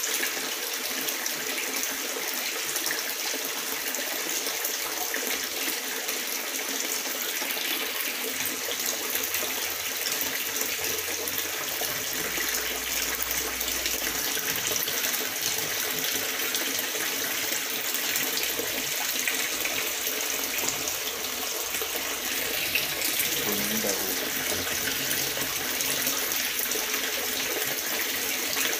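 Water pouring steadily into a koi pond, splashing and churning at the surface.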